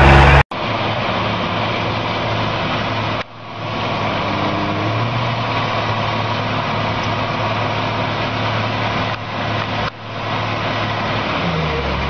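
Big diesel engines of two large tracked farm tractors, a John Deere and a Case IH Quadtrac, running steadily under heavy load as they pull against each other. The red tractor is putting out black exhaust smoke. A louder engine is heard for the first half-second, before an abrupt cut, and the engine sound breaks off briefly about three seconds in and again about ten seconds in.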